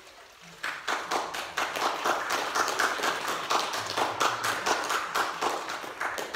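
A small congregation applauding, its many separate hand claps starting about half a second in, greeting a just-completed baptism by immersion.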